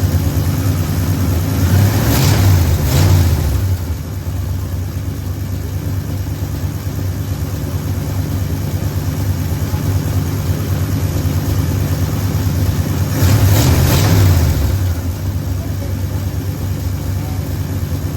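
1973 Ford F100's engine running steadily through its single glass-pack exhaust after a tune-up (new plugs, timing set), blipped up twice, briefly about two seconds in and again near the three-quarter mark, and settling back each time.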